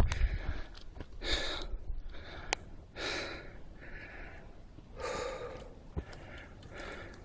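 Heavy breathing close to the microphone, a soft breath about every second, with two sharp clicks in between.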